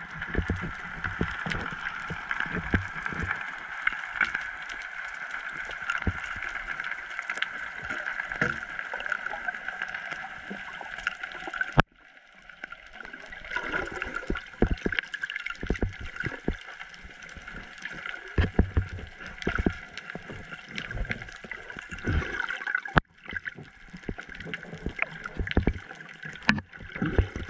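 Underwater sound picked up by a GoPro in its housing during a spearfishing dive: muffled water noise with a steady hiss and many scattered clicks and knocks. The sound cuts out abruptly twice, about twelve seconds in and again near twenty-three seconds.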